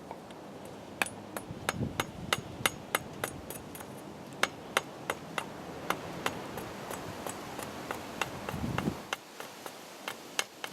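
Machete being batoned with a wooden baton to cut a notch into a wooden tent peg: a run of sharp knocks, about three a second, starting about a second in.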